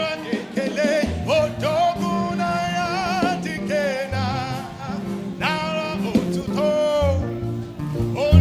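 Live gospel praise music: a singer holding long, wavering notes over a band with a steady bass line.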